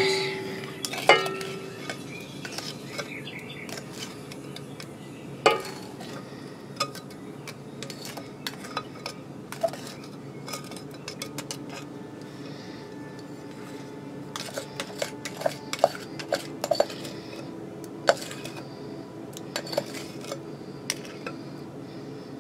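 Kitchen utensil knocking and scraping against a stainless-steel mixing bowl as the egg, sugar, lemon zest and oil mixture is scraped in. Three ringing knocks come at the start, about a second in and about five seconds in, then lighter clicks and clinks follow, busiest a little past the middle.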